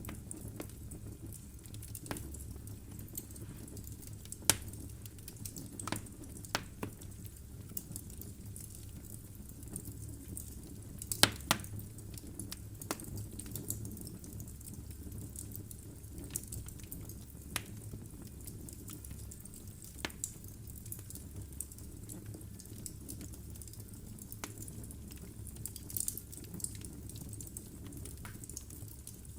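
Logs burning in a fireplace: a low steady rumble of flame with scattered sharp crackles and pops from the firewood. The loudest pops come about four seconds in and in a quick cluster about eleven seconds in.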